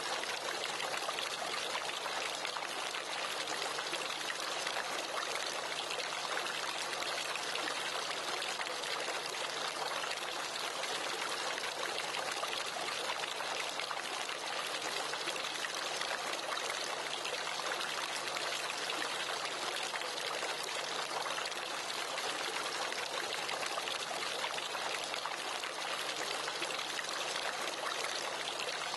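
Water from a four-tier fiberglass courtyard fountain spilling over each tier's rim and falling into the basins below: a steady, even splashing and trickling.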